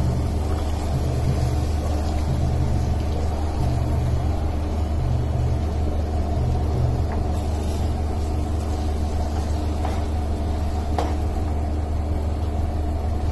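Steady low machine hum, with a few faint light clicks from a plastic ladle working through a thick tomato-onion masala and breadcrumbs in a non-stick pan after water is added.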